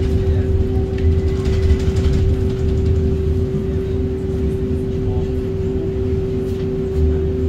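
Street tram standing at a stop, its onboard equipment giving a steady electrical hum over a low rumble.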